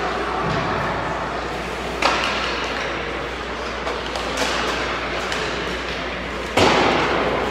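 Sharp cracks of ice hockey pucks being shot: one about two seconds in and a louder one near the end that rings on in the rink, with a fainter knock between, over a steady arena hiss.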